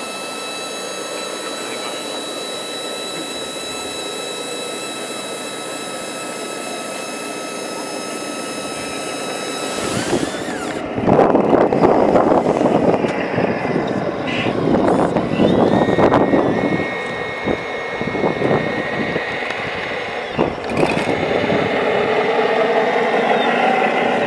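RC tipper trailer's hydraulic pump whining steadily with several fixed tones as the tipping body is raised. About ten seconds in, a louder, irregular rushing takes over as the sand load slides out of the raised body.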